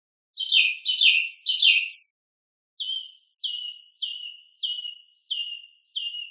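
A bird chirping in short notes that slide downward: three loud doubled chirps, a pause of about a second, then six softer chirps at an even pace.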